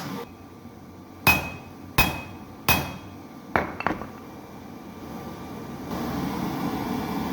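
Hammer blows on steel at the anvil while forging a go mai blade of 1080 and 15N20 steel: three hard strikes about 0.7 s apart, each with a short metallic ring, then a quick run of lighter taps. A steady noise comes up near the end.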